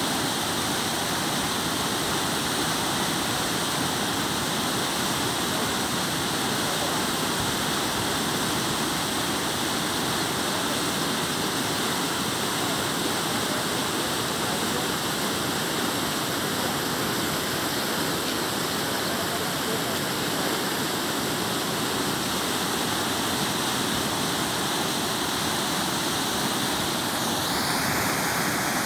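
Swollen, muddy floodwater of the Godavari River rushing in a steady churn past and over the edge of a broken concrete causeway.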